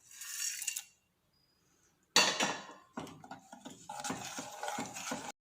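Metal kitchen vessels and a spoon clinking and clattering as spices are tipped into a pan, in short bursts with dead gaps between. The sharpest clank comes a little over two seconds in.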